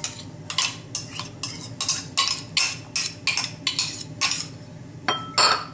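Metal spoon scraping and knocking diced tomato out of a ceramic bowl into a stainless steel mixing bowl: a quick run of clinks, about three a second.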